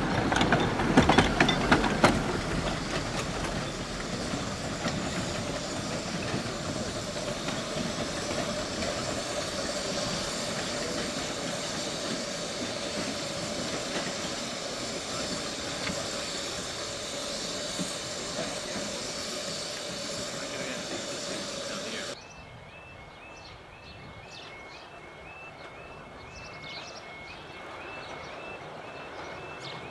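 A miniature 15-inch gauge steam train running past, its wheels clattering over the rail joints with a steady hiss, loudest in the first couple of seconds. About three-quarters through the sound cuts abruptly to a quieter passage with a faint high chirp repeating about twice a second.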